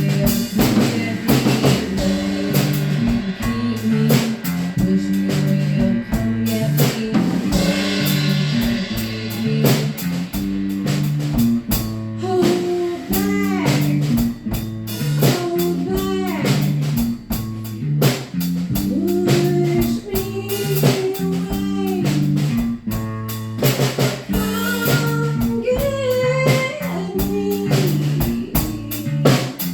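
Band music with drum kit and guitar playing a steady repeating groove. From about twelve seconds in, a melodic line slides up and down in pitch above it.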